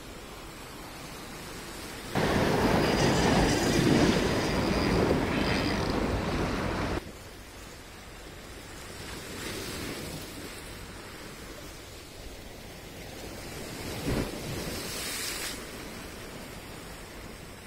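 Small waves breaking and washing over shoreline rocks. A much louder stretch of rushing noise runs from about two to seven seconds in, starting and stopping abruptly, and there is a short knock near the end.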